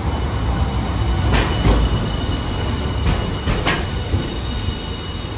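Hiroden Green Mover LEX low-floor articulated tram (car 1007) rolling past on street track: a steady low rumble with a thin high whine. Sharp clacks from the wheels come about a second and a half in and twice more around three and a half seconds.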